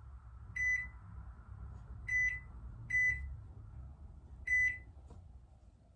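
Microwave oven keypad beeping as buttons are pressed to set a timer: four short, high beeps at uneven spacing, over a faint low rumble.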